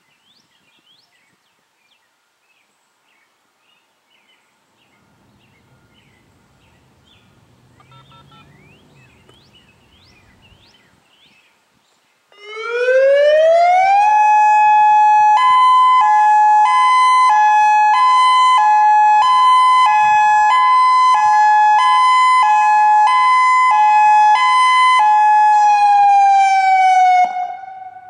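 Faint bird chirps, then about twelve seconds in a Federal Signal EOWS 1212 electronic siren starts loud: its tone rises and holds, then switches back and forth between a high and a low pitch (hi-lo) for about ten seconds, before settling on one tone that slides down and cuts off near the end.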